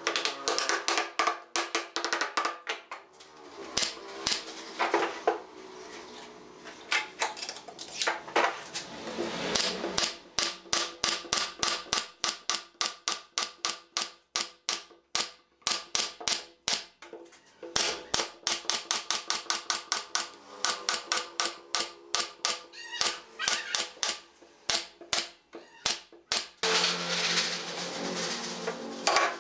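A nail gun firing over and over, a rapid run of sharp shots a few a second as it drives nails through pine slats into a shelf frame. It is preceded by a few knocks from a wooden mallet seating the slats.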